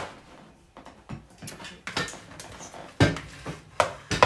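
Kitchen clatter: a string of sharp knocks and clinks of pots and a utensil against a bowl, the loudest about three seconds in.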